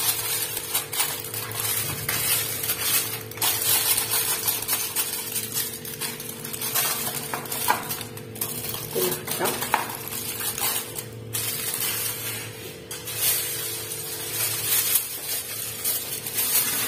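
Aluminium foil crinkling and rustling as hands smooth and press it down over a baking tray.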